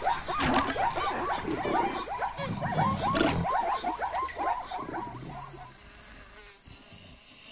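A chorus of cartoon zebra calls: many short, repeated rising-and-falling yelps overlapping, thinning out and stopping about five and a half seconds in. Under them and after them, a steady high chirping of insects, like crickets.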